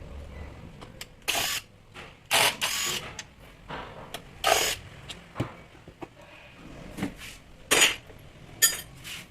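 Hand work on the parts of a rotary hammer during repair: a string of short scraping and rattling noises, about six in all, mixed with sharp clicks and knocks of metal parts.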